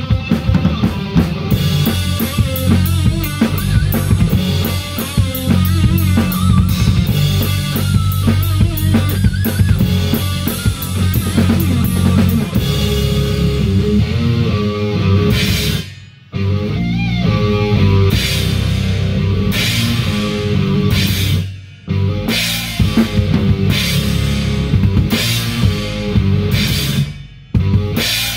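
Metal band playing an instrumental metalcore track live: drum kit with kick drum and cymbal crashes under electric guitars. In the second half the band hits several sudden dead stops before crashing back in.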